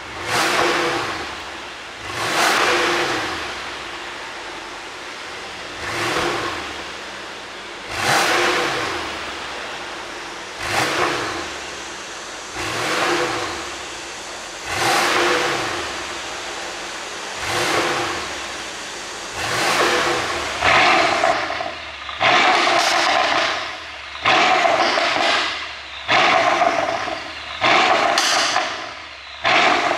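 Mercedes-AMG S63 4Matic twin-turbo V8 revved in repeated blips about every two seconds, each rev rising and falling back. The exhaust pops and crackles as the revs drop, the sound of a pops-and-bangs tune. In the second half the blips come faster and the crackle is sharper and louder.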